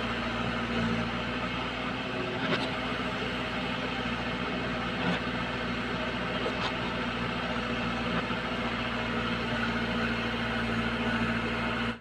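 JCB 3DX backhoe loader's diesel engine running steadily while the backhoe arm digs soil, with a few brief knocks about two and a half, five and six and a half seconds in.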